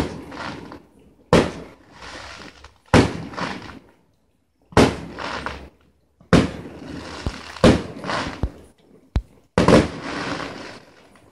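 Aerial fireworks shells bursting: about seven loud bangs, roughly one every second and a half, each trailing off over a second or so.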